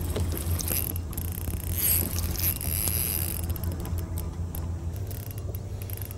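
Spinning reel whirring as line is wound in on a hooked bass, brightest from about one and a half to three and a half seconds in, over a steady low hum.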